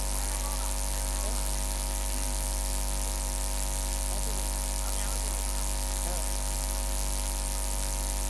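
Steady electrical mains hum from the sound system, a deep drone with a buzz of evenly spaced tones above it, unchanging throughout.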